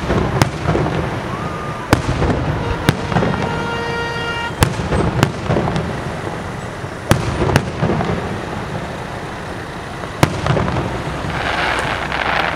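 Aerial firework shells bursting: about eight sharp bangs spaced a second or two apart over a continuous low rumble, with a brief steady whistle-like tone about four seconds in and a swell of hiss near the end.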